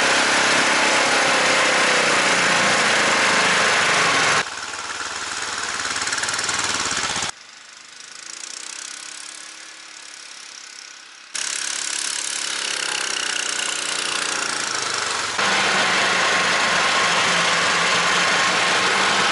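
Homemade SM-002 snowmobile's 20 hp Lifan engine running steadily under load in deep loose snow, loud from on board. About four seconds in the sound drops abruptly, then grows louder; from about seven to eleven seconds it is faint and distant; it is loud again from about fifteen seconds.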